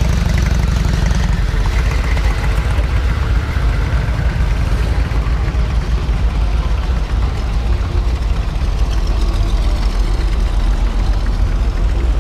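An engine idling steadily, with a deep continuous low note.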